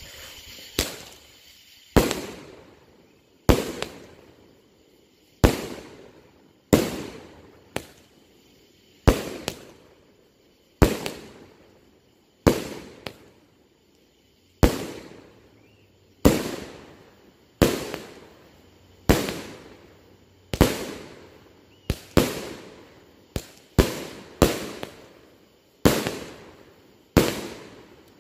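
500-gram Magical Barrage fireworks cake firing shot after shot: a steady string of sharp bangs about every one and a half seconds, each trailing off, with a few coming in quicker pairs near the end.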